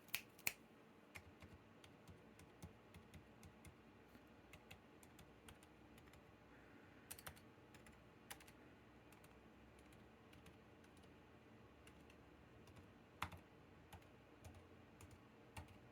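Typing on a Drop CTRL mechanical keyboard fitted with Gazzew Bobagum silent linear switches (68 g pink tops). The keystrokes are very faint and muffled, with a few slightly louder taps now and then.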